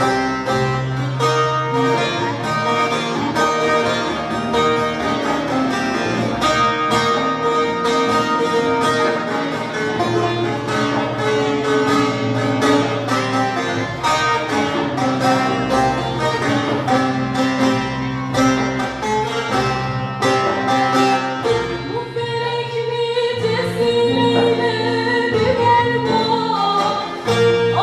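A bağlama (Turkish long-necked lute) and guitars play a plucked instrumental passage of a Turkish folk song, and a woman's voice comes in singing near the end.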